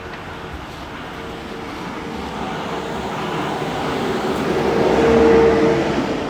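Lorry engine and road noise heard from inside the cab, building steadily to its loudest about five seconds in, with a steady whine running through it.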